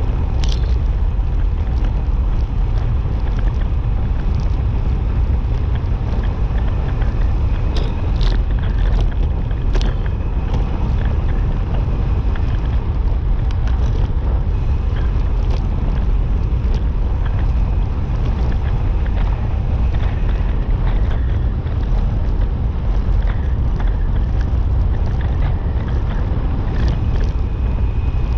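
Steady wind buffeting the microphone of a camera moving at speed down a road, with low rumble underneath and a few light knocks.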